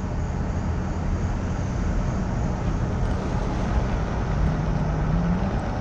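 A car's engine and road noise heard from inside the cabin while driving: a steady low hum.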